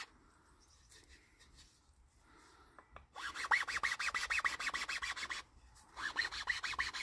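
Chainsaw file rasping quickly back and forth in a saw-cut groove around a wooden hiking stick, widening the cut into a trench for a carved hand grip. Near silence for about the first three seconds, then filing in two runs with a short pause between them.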